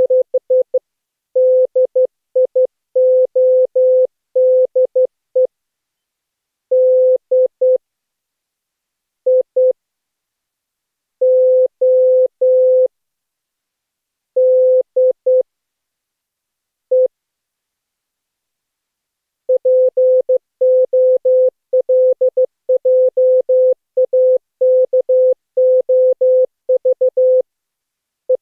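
Morse code sent as a single steady beep tone keyed on and off in dots and dashes. The keying is dense near the start and again over the last third, with long gaps in between.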